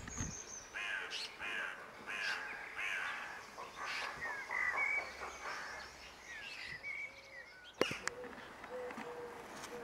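Harsh, crow-like bird calls repeating about twice a second, with higher chirps among them. A sharp click comes just before the eight-second mark, after which a low hooting note repeats.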